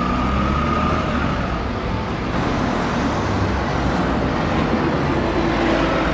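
Double-decker bus engine running as the bus drives past close by, over steady road traffic noise. A high whine fades out about a second in.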